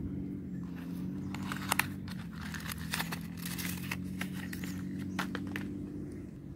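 Crinkling and rustling of a small cardboard box and tissue paper handled by hand, in a cluster of short crackles a couple of seconds long, over a steady low hum.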